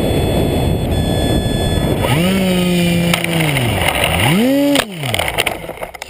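Wind rushing over the onboard camera of a low-flying RC model plane, then its motor and propeller whining up and down in pitch twice as the throttle is worked. About five seconds in come a few sharp knocks as the plane crashes into the sand, and the motor winds down.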